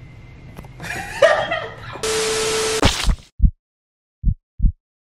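A brief voice, then a burst of TV static hiss with a steady tone that cuts off abruptly after about a second, followed by a heartbeat sound effect: low double thuds about once a second.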